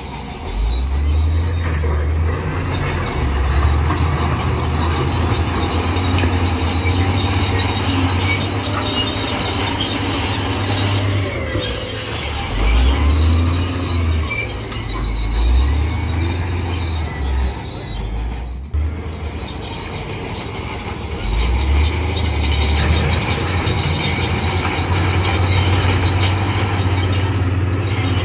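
Heavy diesel earthmoving machinery working under load, the engine rising and falling in pitch several times, with faint metallic squeals over the running.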